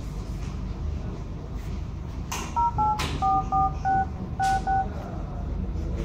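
Nokia X phone dialer playing keypad touch tones as digits are tapped in: seven short beeps, each two tones at once, starting about two and a half seconds in and spread over about two seconds, over a steady low room hum.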